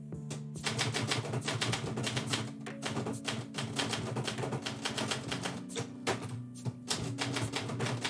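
Manual typewriter keys striking in quick runs, starting about half a second in with a few short pauses near the end, as a line of text is typed. Background music with low sustained notes plays underneath.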